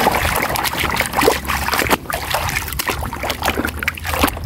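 Muddy, foamy water sloshing and splashing in a basin as a hand scrubs a toy through it, in short irregular strokes.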